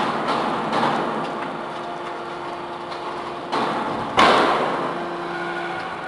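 Hydraulic scrap metal baler's lid swinging shut under its hydraulic cylinder, with metal knocking and grinding. A loud bang comes about four seconds in, and the hydraulic power unit hums steadily after it.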